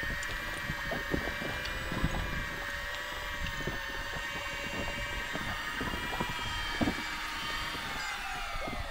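Electric fishing reel motor whining steadily as it winds in line with a fish on, its pitch falling as it slows and stops near the end. Scattered light taps throughout.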